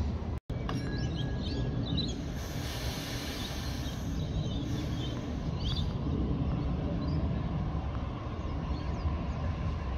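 Steady low hum and rumble of a Sydney Trains Waratah electric train at the platform, with small birds chirping a few seconds in. The sound cuts out for a moment just after the start.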